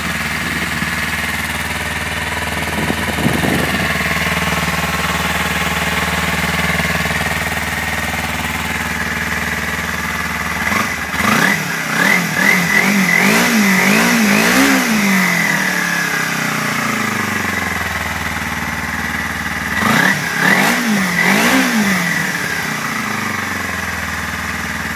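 Kawasaki Ninja 250R parallel-twin engine idling through a Blueflame titanium oval aftermarket exhaust. It is blipped several times about halfway through and twice more near the end, settling back to idle each time. The engine is still cold, so the revs are kept short.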